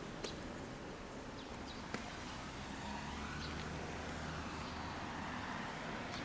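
Outdoor ambience heard while walking: a steady background hum with two sharp clicks in the first two seconds and a low rumble that swells in the middle.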